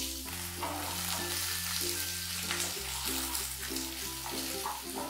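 Sliced onions sizzling as they fry in hot oil in a nonstick pan, stirred with a spatula, over background music.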